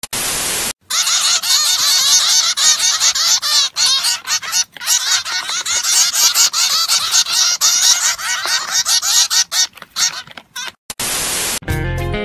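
A short burst of TV-static hiss, then small pet finches chirping rapidly: many short, overlapping high calls. Near the end comes another burst of static, and music starts.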